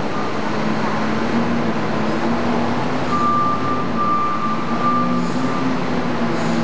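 SEM 659C wheel loader's diesel engine running steadily under work, its pitch rising and falling slightly, with a thin high whine joining in for a couple of seconds midway.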